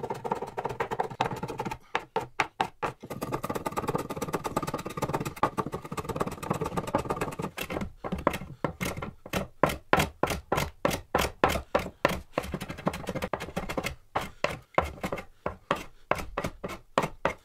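Metal hand plane taking quick, repeated strokes along a finished ash board, each stroke a short scraping cut as it shaves off the old finish and the wood beneath. The strokes come in a steady rhythm of roughly two a second in the latter half.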